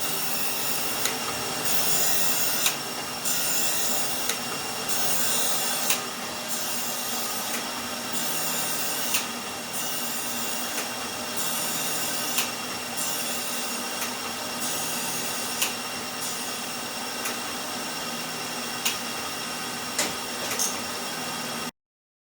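Biax power scraper scraping the machine's guideways: a steady motor running under repeated scraping strokes, roughly one every half-second to second, with occasional sharp clicks. It stops suddenly near the end.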